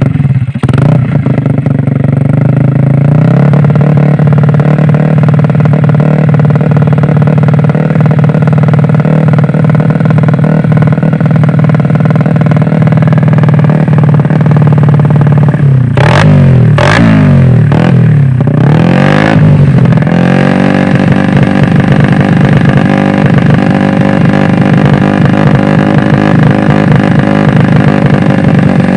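Yamaha Vega R's bored-up 130cc single-cylinder four-stroke engine running through an RCB Purbalingga aftermarket racing exhaust, idling steadily and loud just after being started. A little past halfway it is given several quick throttle blips, the revs rising and falling, then it settles back to idle.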